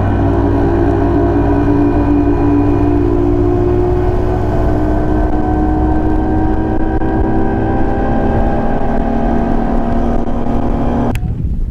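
Bass boat outboard motor running at speed, its pitch steady and creeping slowly higher, until it cuts off abruptly near the end.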